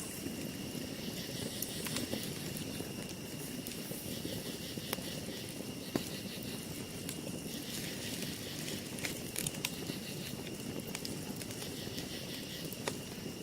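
Wood campfire crackling and hissing, with a few sharp pops, the loudest about halfway through.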